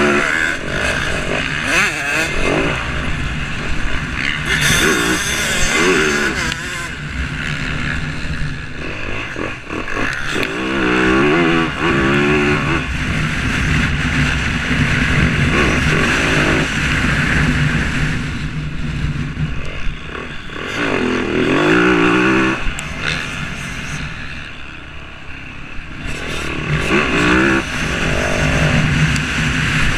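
Motorcycle engines revving and passing, their pitch rising and falling again and again as the bikes accelerate and go by.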